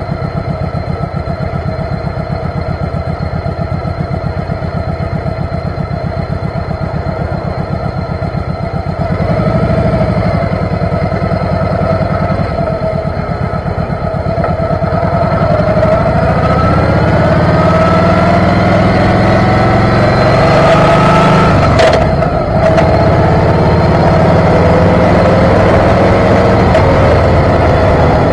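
Motorcycle engine running on the move, steady at first, then getting louder and rising in pitch as it speeds up from about halfway. About three quarters of the way through the engine sound briefly drops, with a short sharp sound, then it runs steady and loud again.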